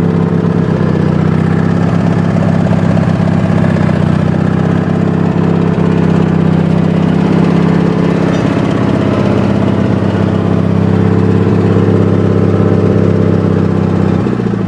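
Wheel Horse tractor's twin-cylinder Briggs & Stratton engine running steadily and evenly on both cylinders after its dead cylinder was repaired. The note drops near the end as the engine is throttled back.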